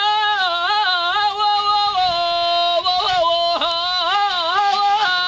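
A man singing one long, unbroken high wail into a drum held against his mouth, the pitch mostly held but turning in quick wavering ornaments and stepping down a little now and then.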